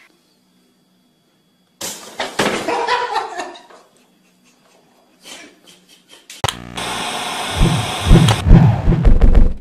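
A pop-up toaster springs up with a sharp snap about two seconds in, followed by about two seconds of clatter and scrabbling as the cat's bed tips over. From about six and a half seconds, a loud hiss of TV static with heavy low thumps.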